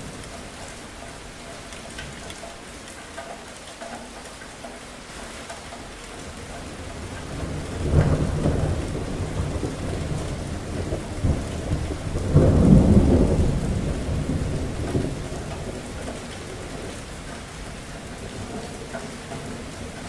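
Thunderstorm: steady rain falling throughout, with a long roll of thunder building about a third of the way in, a sharp crack at its start, and a louder peak a few seconds later before it rumbles away.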